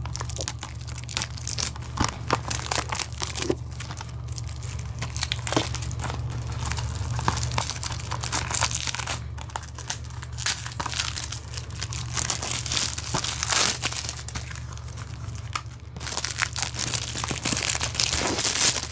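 Clear plastic shrink-wrap being torn and crumpled off a Blu-ray case by hand: continuous irregular crinkling with sharper tearing crackles.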